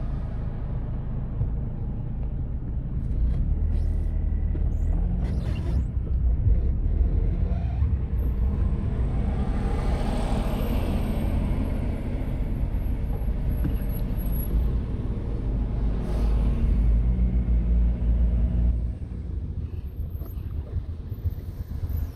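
Road traffic heard from a moving vehicle: a steady low rumble of engines and tyres that swells about ten seconds in and again a little later, then drops off a few seconds before the end.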